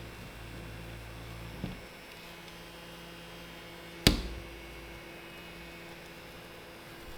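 Small desk fan's motor humming steadily. Its hum changes at a light click about a second and a half in, and a sharp click comes about four seconds in.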